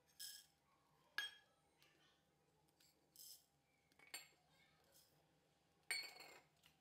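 Dry lentils and coriander seeds tipped from a small steel bowl into an empty nonstick pan: a series of short clinks and rattles of grains and metal, the loudest about a second in and near the end.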